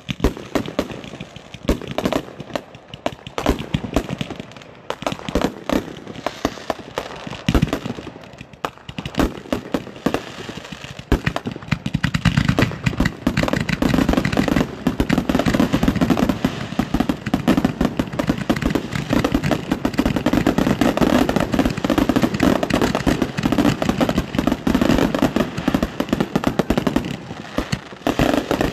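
Many hand-lit consumer fireworks cakes firing at once: rapid pops and bangs of shots leaving the tubes and bursting overhead. About twelve seconds in they thicken into a dense, near-continuous barrage.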